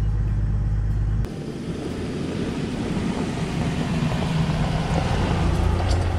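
A Toyota Land Cruiser HZJ75 Troopy driving past on a gravel forest track: its diesel engine and tyres crunching over the dirt, growing louder as it comes by. This is preceded, for about the first second, by a steady low engine drone that stops abruptly.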